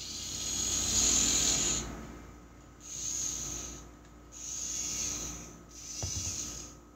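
Small electric motors and plastic gearboxes of a remote-controlled tracked construction-robot kit whirring in four short runs as the boom arm and gripper move, the first and longest about two seconds.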